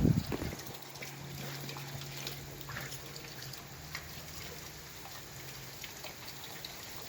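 Faint dripping and trickling of water from freshly soaked surfaces, with scattered small drip ticks. A thump at the very start, and a low steady hum under it for most of the time.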